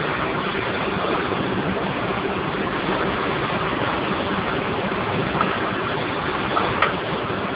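Steam boiler running: a steady rushing hiss with a faint low hum underneath, and a few short clicks near the end.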